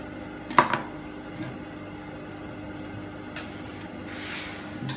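Scissors snipping through cotton fabric, one sharp double click about half a second in, while trimming the edge of a pocket bag. After that only a steady low hum, with a short rustle of cloth near the end.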